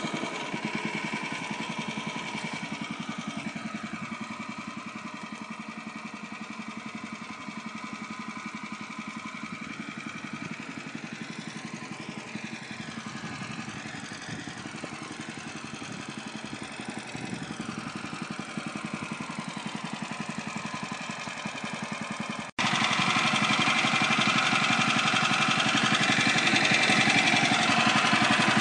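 Woodland Mills HM126 portable bandsaw sawmill running steadily under its engine while milling black walnut. About three-quarters of the way through, the sound breaks abruptly and comes back noticeably louder.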